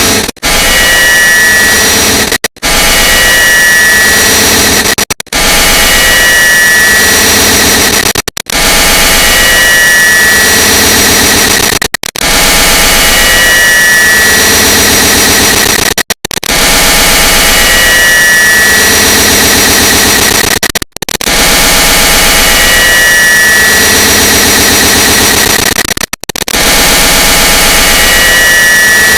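A click sound effect digitally layered an enormous number of times, merged into a loud, harsh, continuous noise with a high tone that comes and goes. It cuts out briefly every two to five seconds.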